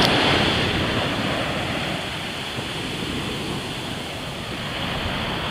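Ocean surf washing on the beach: a steady rush of breaking waves that eases a little midway.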